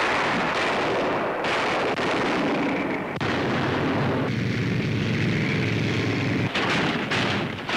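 Tank guns firing and shells bursting, several heavy blasts a second or two apart over the rumble of tank engines and tracks.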